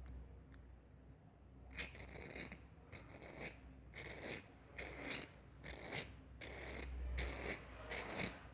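Lighter being worked over and over: short scratchy rasps, about two a second, starting about two seconds in, typical of the flint wheel being thumbed.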